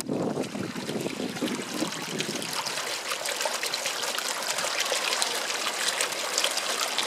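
Storm-surge floodwater welling up in a small frothy boil, with a steady bubbling trickle and fine splashing. A low wind rumble on the microphone fades out over the first two or three seconds.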